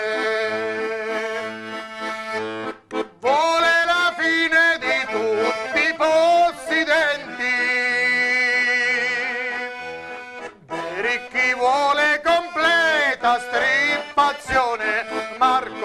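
Diatonic button accordion (organetto) playing a folk-song melody over pulsing bass notes, with brief breaks in the bellows about three seconds in and again near ten seconds.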